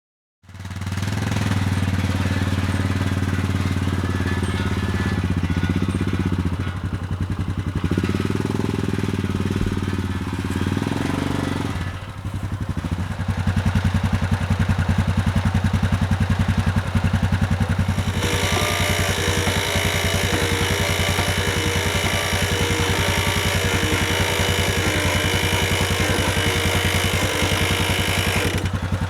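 The small engine of a manual bandsaw sawmill running steadily at working speed. About two-thirds of the way in, a higher whine and hiss joins it.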